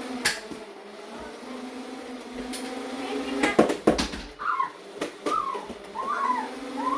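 Sharp clicks and knocks, with a tight cluster about halfway through, typical of Nerf blasters firing and foam darts striking. Over the last few seconds a dog whimpers in short rising-and-falling whines, a little under one a second, over a steady low hum.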